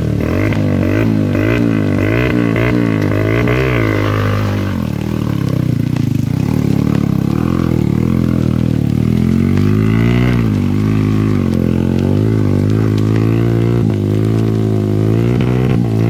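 Small trail motorcycle engine revving up and down under load as it climbs a rutted, muddy track, its pitch rising and falling a couple of times a second.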